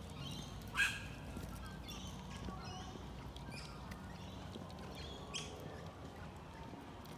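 Birds calling repeatedly in the trees, short calls every second or so, with one sharper, louder sound about a second in, over soft footsteps on a dirt path.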